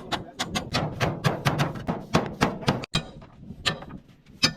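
A rapid series of sharp knocks, about five a second, with a brief break a little past the middle and fewer knocks near the end.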